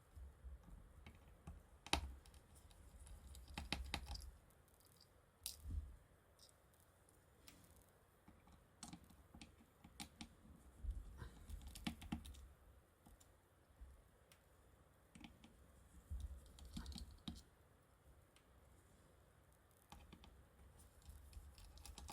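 Irregular faint clicks and taps of a precision screwdriver and tiny screws being worked out of a smartphone's back panel and set down, with a few soft bumps.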